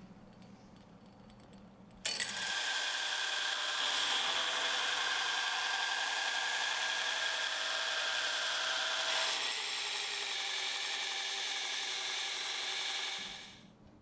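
Belt grinder grinding down the threads of a steel threaded rod: a steady, hissing grind with a few held whining tones. It starts suddenly about two seconds in and winds down about a second before the end.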